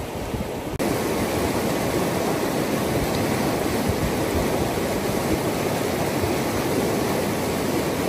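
River rapids rushing over boulders: a steady, loud wash of white water. It gets louder about a second in.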